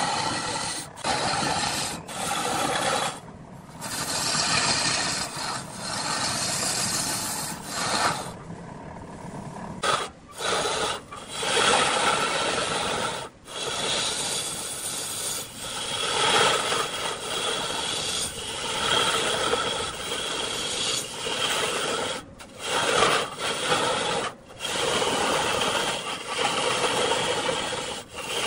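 Turning tool cutting into wood spinning on a large wood lathe: a continuous rasping scrape, broken by several brief gaps.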